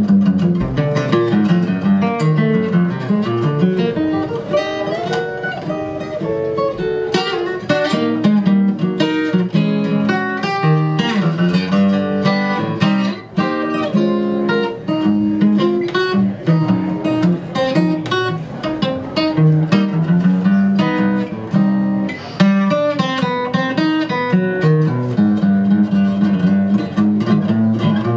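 Solo steel-string acoustic guitar played live: quick runs of plucked notes over ringing low bass notes, with a brief lull about thirteen seconds in.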